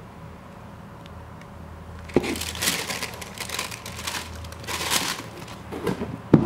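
Thin tissue paper crinkling as it is folded over inside a cardboard shoe box, starting about two seconds in after a light knock. Near the end the cardboard lid is set down on the box with a sharp thump.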